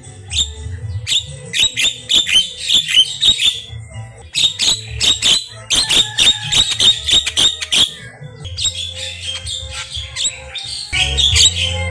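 Javan myna (jalak kebo) singing a rapid chattering song of quick clicks and squeaky whistled notes, in two long bursts with a short break about four seconds in and sparser chatter near the end.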